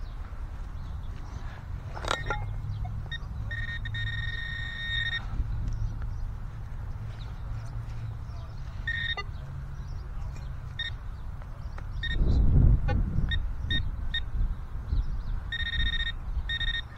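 Metal detector sounding on a small buried target: a held electronic tone a few seconds in, a string of short beeps, and the tone held again near the end. The low rumble of handling or ground noise rises to a louder thud-like burst about twelve seconds in.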